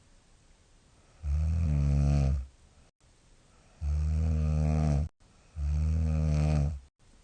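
A young woman snoring heavily in her sleep: three long, deep, rumbling snores about a second apart, each lasting just over a second. The uploader likens them to the ground rumbling and suspects that pollen season and going without her mouthguard make them worse.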